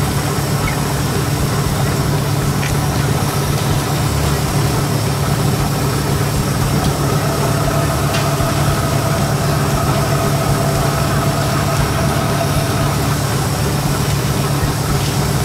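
Steady low machine hum, like an engine running at idle, with a faint higher tone added through the middle.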